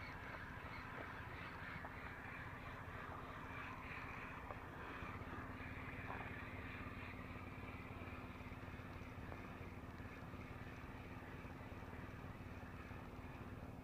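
Faint outdoor ambience: an even hiss with a steady low hum running under it.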